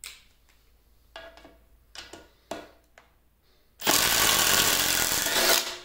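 A few light clicks and knocks, then a cordless impact driver hammering hard for about two seconds, backing a lag bolt out of a wooden 4x4, and stopping abruptly.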